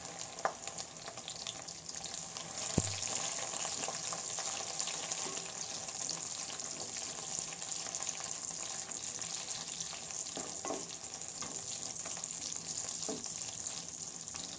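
Okra pieces frying in hot sesame oil in a clay pot: a steady sizzle with fine crackling as they are stirred with a wooden spatula. There is one sharp knock about three seconds in.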